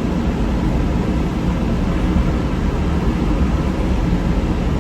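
Steady low rumble with a hiss over it inside a car cabin, with no separate knocks or changes.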